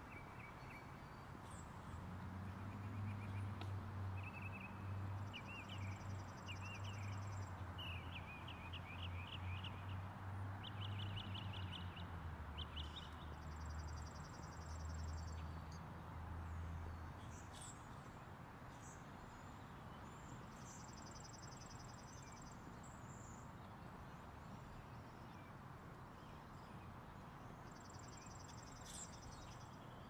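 Birds singing repeated high phrases and trills over a steady outdoor hiss. A low engine drone swells from about two seconds in, drops in pitch around twelve seconds and fades out by about seventeen seconds.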